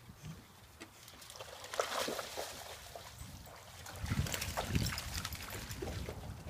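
Dogs wading and splashing through shallow water, in two spells: one about two seconds in and a louder one around four to five seconds in.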